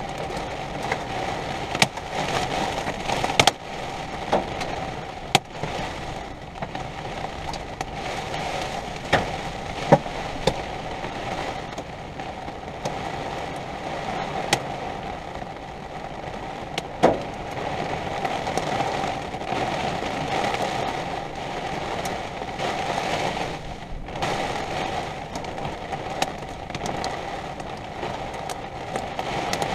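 Storm rain on an RV, with sharp taps striking it every second or two over a steady hum. The taps are loudest about ten and seventeen seconds in.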